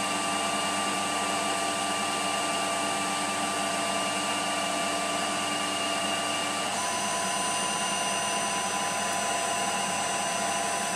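Emco PC50 CNC lathe running at 1500 rpm, turning a brass rod with a fine 0.06 mm-per-rev feed: a steady machine whine with several held tones. About seven seconds in, the tones shift slightly and a new high whine joins.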